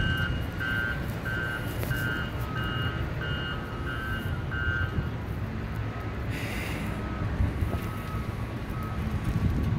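Construction vehicle's back-up alarm beeping about twice a second over a steady low engine rumble. The beeping stops about five seconds in; after a brief hiss, a fainter, lower-pitched beeping goes on.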